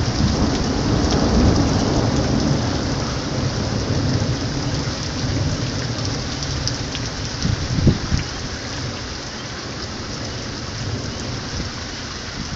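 Steady rain falling, with a low rumble of thunder that dies away over the first several seconds. A brief thump comes about eight seconds in.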